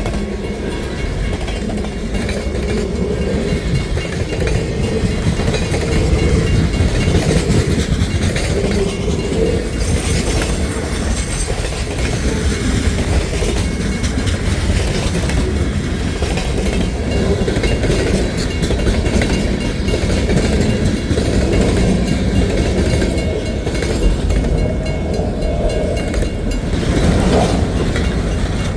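Freight train cars rolling past at track side, a steady heavy rumble with wheels clattering over the rail joints.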